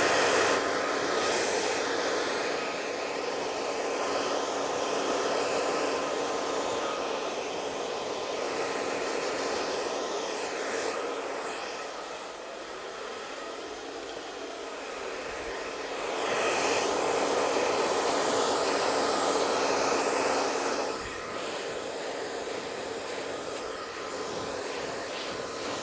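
Handheld hair dryer running, blowing short hair dry: a steady rush of air with a faint motor hum. It swells and fades as the dryer is moved around the head, loudest for a few seconds past the middle, then drops suddenly.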